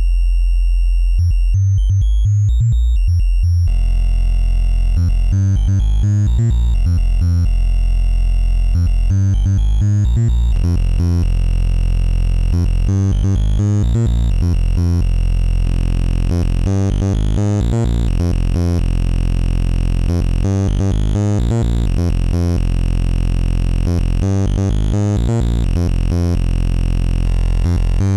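Amiga OctaMED wavetable synth instrument playing a looping pattern of repeated low notes. About four seconds in, its tone turns brighter as the sine waveform is stretched out of shape.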